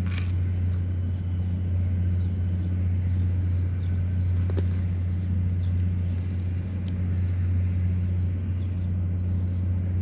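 A machine running steadily with a deep, unchanging hum, with a few faint clicks over it.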